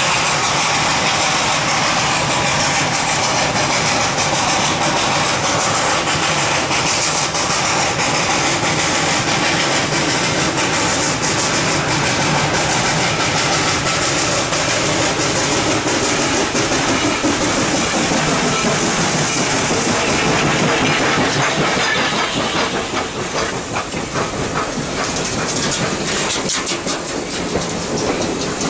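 Steam locomotive No. 734, a 2-8-0, approaching and passing with a steady hiss of steam. In the last several seconds its passenger coaches roll by, wheels clicking rapidly over the rail joints.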